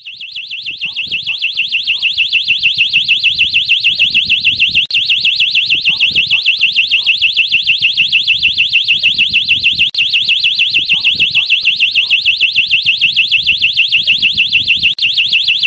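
Electronic warning siren warbling rapidly at a high pitch. It swells over the first couple of seconds, holds steady, then cuts off suddenly. It is the alarm of an elephant early warning system, sounding as an elephant approaches.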